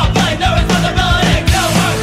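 Background rock music with a steady drum beat and a sung melody line.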